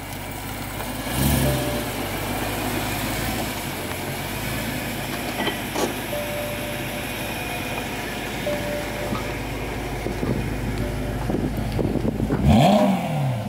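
2013 BMW M3's 4.0-litre V8 running through an M Performance exhaust as the car creeps along at low speed and idles, with a brief rise and fall in pitch near the end.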